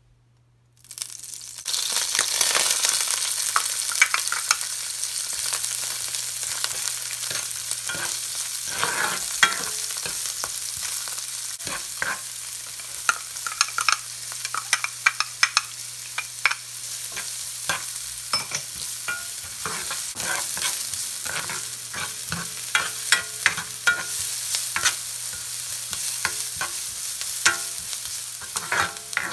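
Chopped onion and garlic frying in oil in a nonstick pan: a loud sizzle that starts suddenly about a second in and runs steadily, with frequent scrapes and taps of a plastic spoon stirring against the pan.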